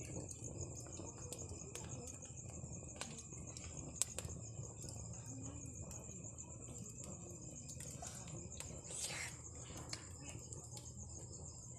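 Crickets chirping steadily under faint background voices, with scattered short clicks and one sharp click about four seconds in.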